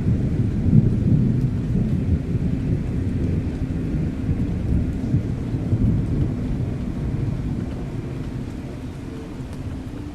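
Dark ambient soundscape of deep, rolling thunder with rain, loudest at the start and slowly fading over the last few seconds.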